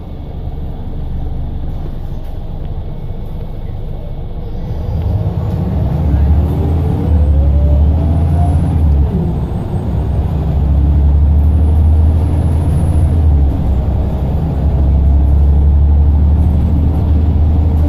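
Scania L94UB single-deck bus's diesel engine heard from inside the cabin, running quietly for a few seconds and then building into a loud, steady low drone as the bus accelerates, with a faint rising whine from the driveline.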